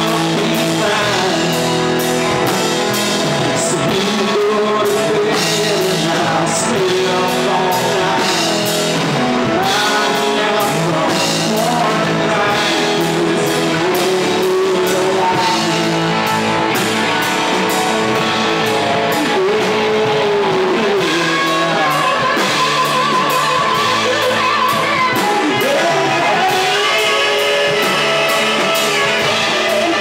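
Rock band playing live: electric guitars, bass and drum kit, with a man singing lead.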